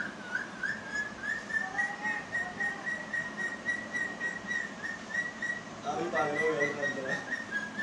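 A high, wavering whistle that repeats about three times a second without a break. Brief low voices come in about two seconds in and again about six seconds in.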